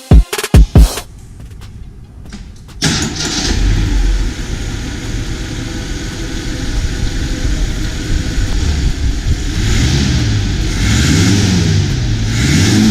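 Rebuilt AMC 258 4.2-litre inline-six engine starting about three seconds in and running, then revved up and down several times near the end.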